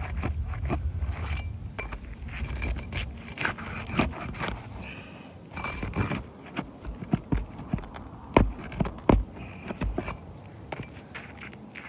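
A metal hand tool scraping and clicking against asphalt roof shingles as they are unsealed and their nails worked loose. A low rumble in the first couple of seconds, then a few loud sharp knocks about eight to ten seconds in.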